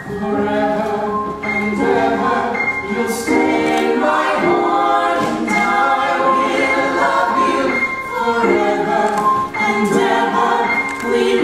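Several voices singing a show tune together in harmony, holding long chords that change every second or so.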